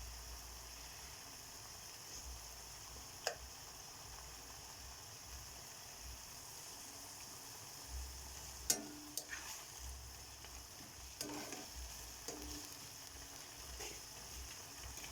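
A pan of sautéed alikway leaves sizzling steadily on the heat, with a few light clicks scattered through.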